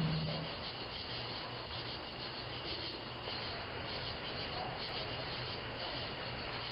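Steady, fairly quiet background hiss picked up by a doorbell camera's microphone, with the low hum of a passing vehicle fading out about half a second in.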